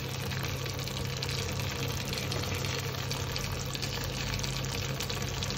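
Yogurt okra curry simmering and sizzling in the pan: a steady fine hiss over a low, even hum.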